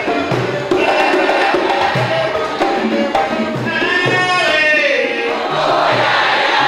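Live African drumming with a steady beat and voices singing over it; about four seconds in, a long vocal call slides downward in pitch.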